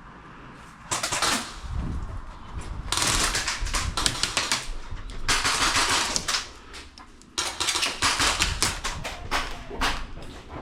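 Airsoft guns firing rapid bursts: four strings of quick, sharp pops over several seconds, the longest near the end.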